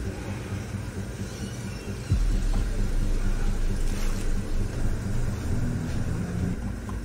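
A low, steady rumble and hum, joined about two seconds in by a sudden, louder deep bass drone that holds on.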